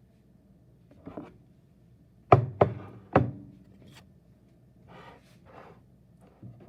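A knife knocking sharply on a cutting board three times in quick succession, a little over two seconds in, as a quesadilla is cut. A lighter click and soft scraping follow.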